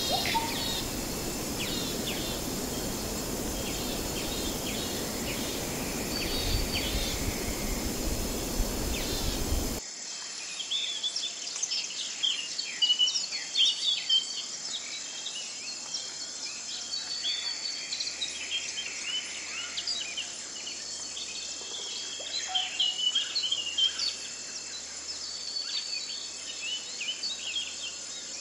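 Outdoor nature ambience: many birds chirping over a steady high drone of insects. About ten seconds in, it cuts to a cleaner, quieter recording with busier birdsong over the insect hum.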